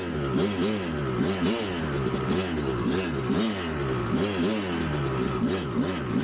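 1999 Kawasaki KX250 single-cylinder two-stroke dirt bike engine, revved up and down in quick even swells about twice a second.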